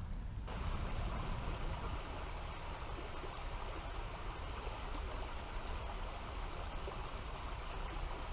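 Shallow rocky creek running over and between boulders: a steady rush and burble of moving water that starts about half a second in.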